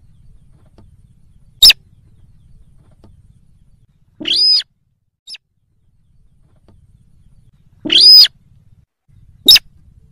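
Slaty-breasted rail calling: a short sharp note, a longer call about four seconds in, a faint brief note, another longer call about eight seconds in, and a last sharp note near the end, over a faint low hum.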